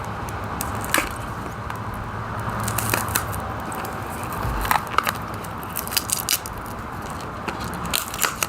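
Scissors cutting open crinkly plastic packaging: irregular snips, clicks and crackles.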